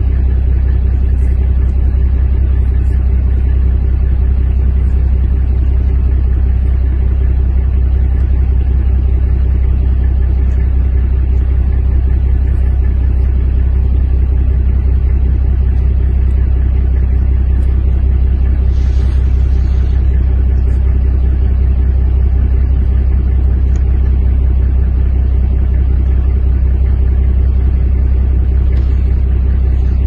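Engine idling steadily, a deep unchanging rumble with a faint steady hum.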